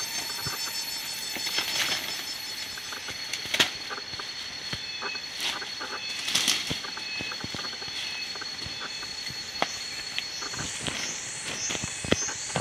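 Leaves rustling and stems snapping as broad leaves are pulled from forest plants, with sharp cracks now and then, over a steady high-pitched tone. From about ten seconds in, a high rising call repeats about twice a second.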